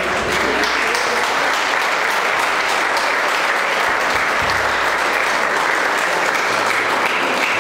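A crowd applauding: dense, steady clapping from many hands that comes in abruptly and holds at full strength.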